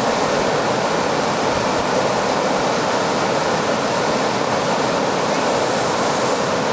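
Steady rush of white water pouring down a smooth granite slab, a fast cascading stream.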